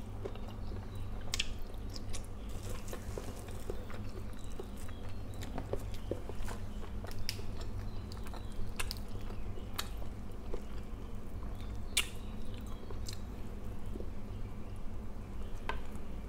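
Close-miked chewing and mouth sounds of a person eating fried fish and rice by hand, with scattered small clicks and crunches, over a steady low hum.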